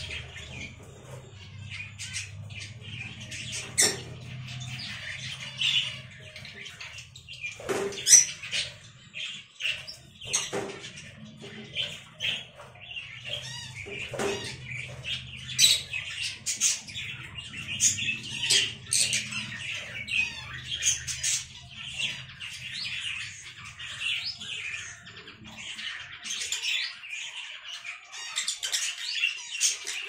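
Peach-faced lovebirds chattering in a near-continuous run of high squeaky chirps, broken by many sharp clicks and taps, the loudest about eight seconds in. A low steady hum runs underneath and stops a few seconds before the end.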